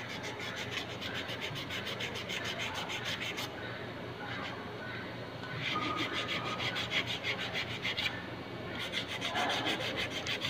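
A screwdriver working the screws of a removed Suzuki Multicab F6A carburetor: rapid, scratchy metal-on-metal rasping in runs of about three seconds, broken by short pauses.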